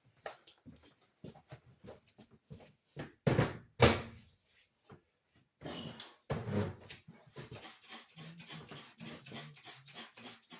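A step stool being pulled out and set down on a hard floor: loud knocks and scrapes about three and a half seconds in and again around six seconds, with small clicks and taps between.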